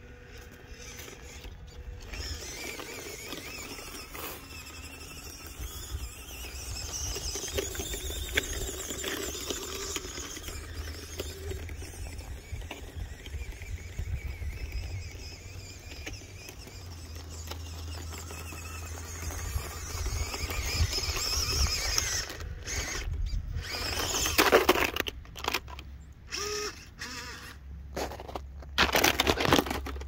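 1:18-scale RC crawler's small electric motor and gearbox whining as the truck drives over icy snow. Several loud crunches in the snow come near the end.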